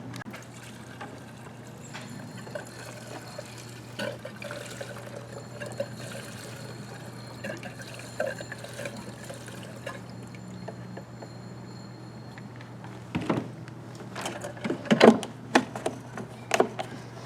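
Gasoline being poured from a fuel can into a lawn mower's fuel tank, a faint steady trickle, with a few louder knocks and clatters in the last few seconds.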